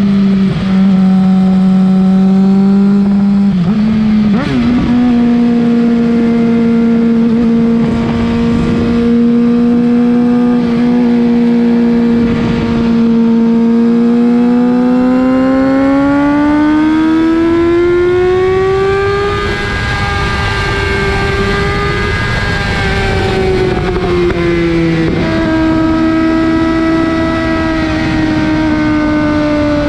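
2007 Suzuki GSX-R 750's inline-four engine heard right at its Yoshimura R55 slip-on exhaust while riding. The note holds steady, steps up in pitch about four seconds in, and climbs through a long pull over several seconds around the middle. It then eases and drops lower near the end.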